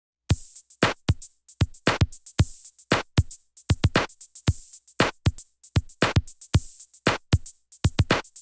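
Intro music: a drum-machine beat of sharp hits and deep kick drums that drop in pitch, played at a quick, uneven rhythm of about three to four hits a second. It starts a moment after the opening.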